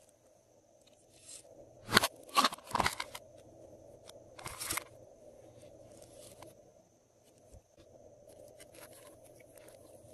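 Hands handling hard plastic slime containers and a plastic bottle: three sharp clattering, crunchy knocks about two to three seconds in, another burst about four and a half seconds in, then softer rustling and crackling.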